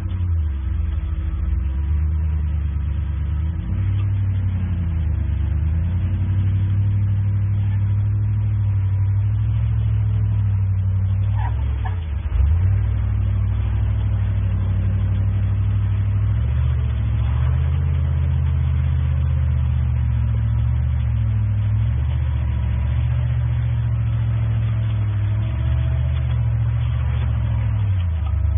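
Jeep Wrangler's engine running at low revs under load while crawling over rock ledges, the revs rising and falling with the throttle. A single sharp knock comes near the middle.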